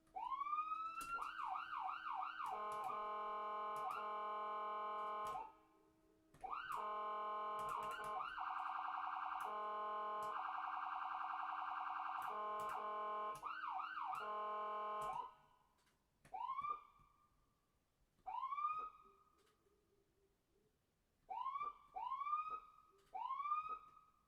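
Electronic ambulance siren. It starts with a rising whoop, breaks into a fast repeated yelp and then a rapid steady warble, cuts out about five seconds in, and restarts to run through the same modes until about fifteen seconds. After that it gives a few short single rising whoops, the last three close together.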